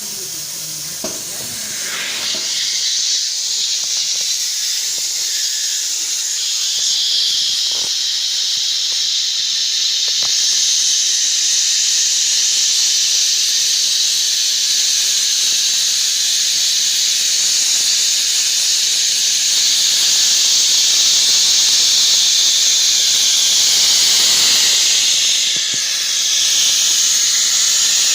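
Hot-air PVC welding machine running: its blower forces air out in a steady, high hiss that builds about two seconds in and dips briefly near the end.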